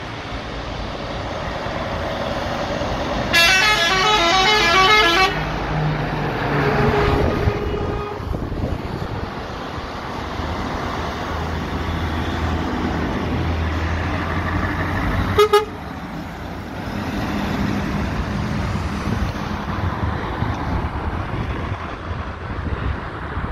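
Truck air horn playing a short tune of alternating notes for about two seconds, a few seconds in, over Scania truck diesel engines running as the trucks pass. A second, brief horn blast comes about two-thirds of the way through.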